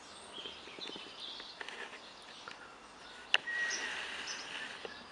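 Birds chirping in the background, short high calls scattered throughout, with one sharp click about three seconds in.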